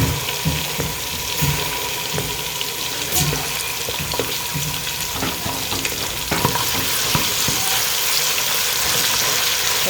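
Tomato paste and onions frying in red palm oil in a pot, sizzling steadily. Stirring strokes knock against the pot during roughly the first half.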